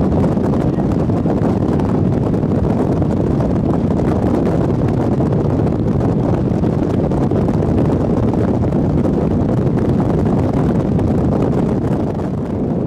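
Steady wind rushing across the microphone: a loud, even, low rumble with no distinct events.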